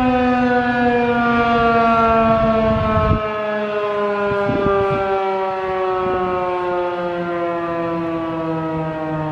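Federal Signal 2001-SRN single-tone chopper siren (12-port) winding down at the end of its alert: one loud steady tone with many overtones, falling slowly in pitch. A low rumble under it stops about three seconds in.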